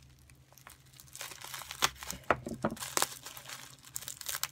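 Packaging wrap crinkling and tearing as a tightly wrapped collectible figure is unwrapped by hand: irregular crackles and sharp ticks starting about a second in.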